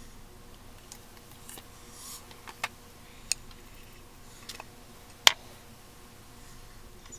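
A handful of light, sharp clicks and taps at irregular intervals, the loudest about five seconds in, from small objects being handled at close range. A faint steady hum sits underneath.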